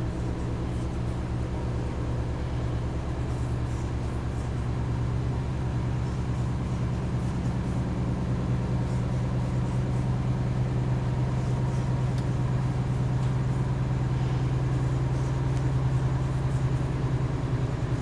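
Steady low mechanical hum of a running motor, such as a kitchen fan, growing slightly louder toward the end.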